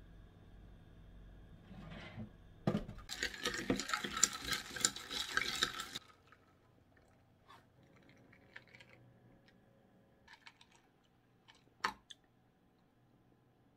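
Ice cubes rattling and clinking against a glass as an iced milk coffee is stirred with a straw, a dense clatter for about three seconds that stops abruptly. After it come a few faint clicks and one sharper click near the end.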